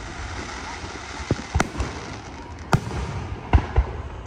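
Aerial firework shells bursting overhead: about five sharp bangs at irregular intervals, the first about a second in and the last two close together near the end.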